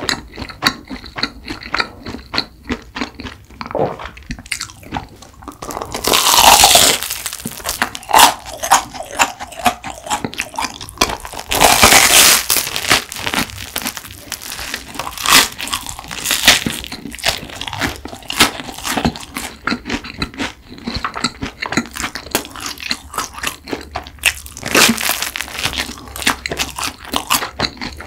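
Close-miked eating: a crusty garlic baguette being bitten and chewed, with crisp crunches and wet mouth sounds throughout and a couple of louder, longer crunching spells.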